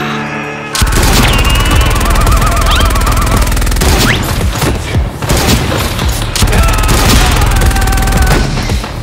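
Loud, driving action music that kicks in abruptly about a second in, with rapid bursts of gunfire-like shots over it.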